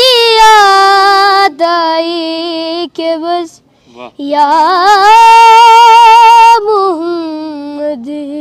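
Unaccompanied naat recitation by a single high voice, drawing out long held notes joined by gliding ornaments. A short pause comes about halfway, then the voice slides up into its longest high note and steps back down.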